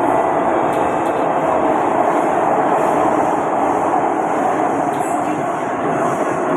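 Inside a Kawasaki-Sifang C151B metro car running through an underground tunnel: a steady, loud rumble of wheels on rail with faint steady tones.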